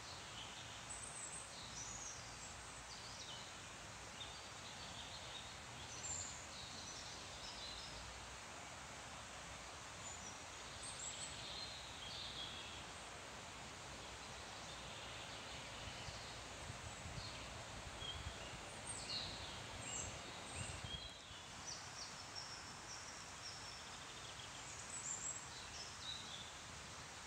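Birds singing in short scattered chirps and trills over a steady hiss of leaves rustling in the wind.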